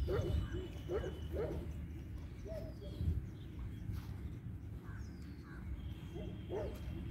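Birds calling: several short calls scattered through, with a few thin high descending whistles, over a steady low rumble.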